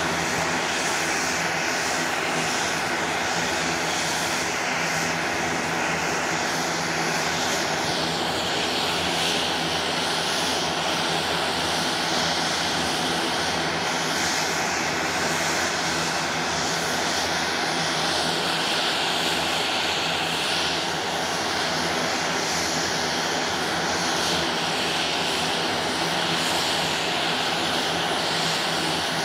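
Beech B100 King Air's twin Garrett TPE331 turboprop engines running steadily on the ground, both propellers turning: a continuous turbine whine and propeller drone whose high hiss swells and eases a little every several seconds.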